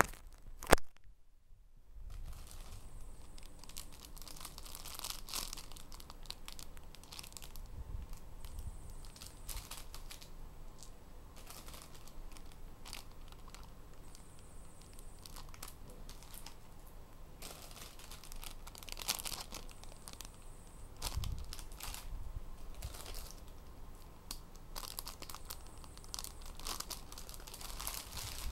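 Clear plastic bags crinkling and rustling as bagged squishy toys are handled, with one sharp knock about a second in.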